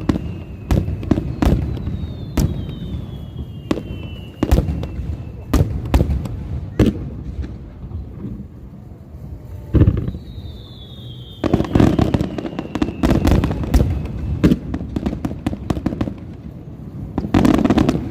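Aerial fireworks shells bursting in a rapid string of booms and bangs, with high whistles falling in pitch near the start and again about ten seconds in, and thick bursts of rapid crackling around twelve seconds in and near the end.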